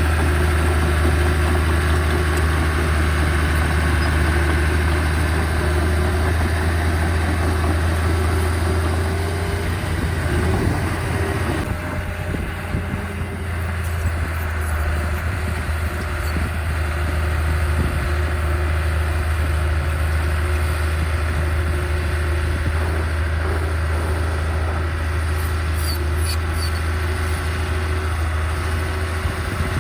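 Diesel engine of heavy earthmoving equipment running steadily with a strong low hum. It eases off briefly about halfway through, then picks up again.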